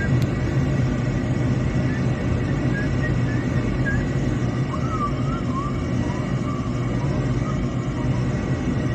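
Gas furnace's fan motor running steadily with a low hum and rushing air while the furnace starts up again. Faint short warbling whistles sound over it.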